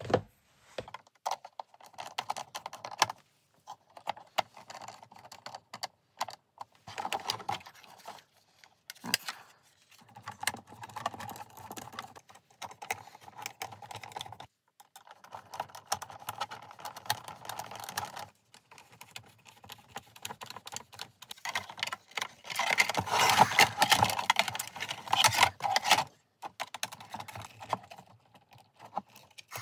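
Plastic housing parts of an LED moving-head light clicking and scraping as it is put back together, with a hand screwdriver turning screws. Irregular runs of small clicks throughout, densest about three quarters of the way through.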